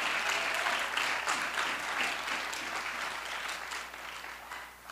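A church congregation applauding: many hands clapping densely, slowly dying away and stopping near the end.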